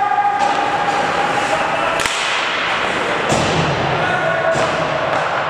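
Ice hockey play: skates scraping on the ice under steady arena noise, with a sharp crack of stick on puck about two seconds in and softer knocks of stick and puck a little later.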